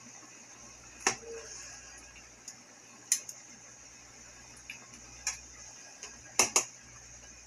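Metal tongs clicking against a metal pan as cube steaks are laid into gravy: several sharp clicks a second or two apart, two in quick succession near the end, over a steady hiss.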